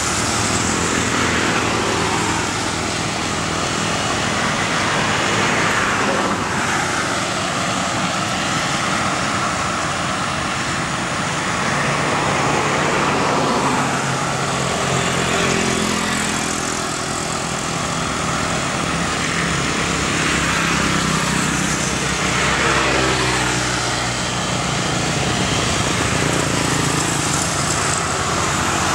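Boeing 737 jet engines heard from afar as the airliner lines up and starts its takeoff roll on a wet runway: a steady rushing engine noise with no sudden events.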